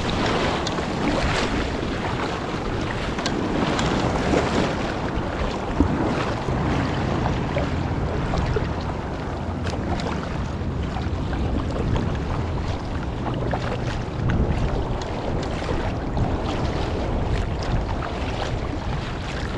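Wind noise on the microphone over the wash of small breaking waves and the splash of kayak paddle strokes, as a kayak is paddled out through the surf.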